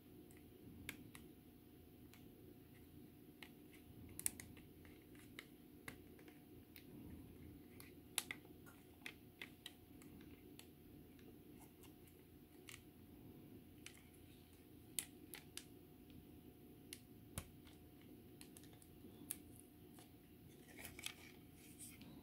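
Quiet handling of plastic model kit parts while masking tape is pressed along a wing edge: scattered small clicks and taps, loudest about 4 and 8 seconds in, with a brief rustle near the end, over a faint steady hum.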